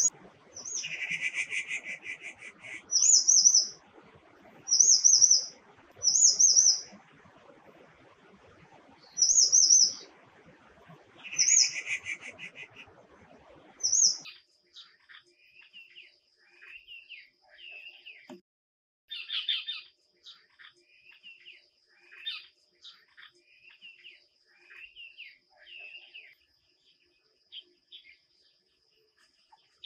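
Grey treepies calling: a series of short, loud, high calls mixed with harsher, lower calls, repeated every second or two. About halfway through the sound changes abruptly to softer, lower chattering calls over a thin, steady high tone.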